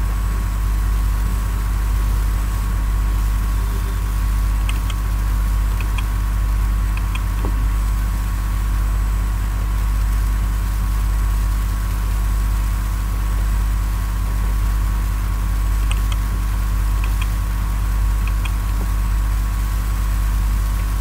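Steady low hum with a buzzing edge, unchanging in level, and a few faint keyboard key clicks about five seconds in and again later on.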